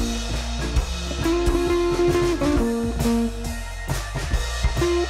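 Upbeat background music: plucked guitar over a drum kit with a steady beat.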